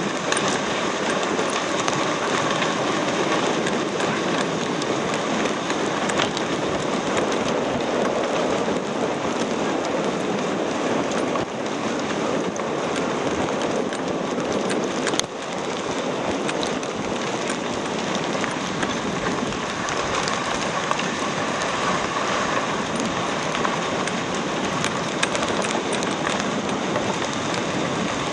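Dog sled runners sliding over a snow trail: a steady hissing rush of snow noise with a few faint clicks.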